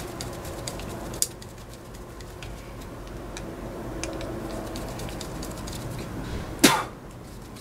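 Screwdriver working the screw of a metal cable clamp on a generator's power cable: faint scattered clicks and ticks, a louder click about a second in, and a sharp knock near the end, over a steady low hum.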